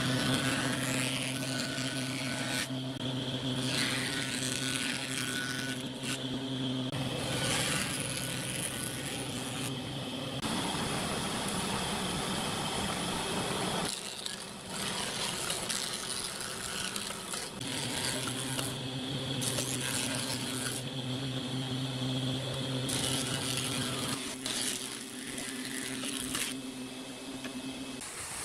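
Combination jointer/thickness planer running: a steady motor hum, with a long stretch of rough cutting noise in the middle as wooden strips are fed across the spinning cutterhead.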